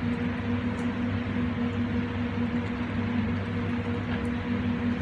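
Steady whir of a commercial kitchen extractor fan with a constant low hum, plus a few faint light ticks from a wooden spoon stirring in a metal pan.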